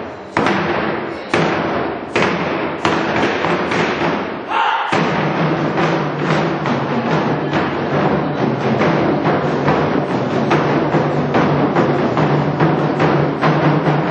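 Korean drumming ensemble playing live: heavy drum strokes spaced well apart at first, then, after a brief break about five seconds in, fast dense drumming with many strokes a second.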